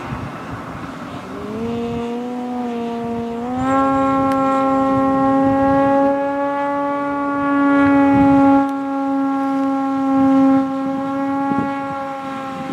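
Electric outrunner motor and propeller of a quarter-scale SIG Piper Cub RC plane in flight: a pitched hum that comes in about a second in and climbs in two steps as the throttle is opened. It then holds a steady pitch, growing louder in the middle as the plane passes.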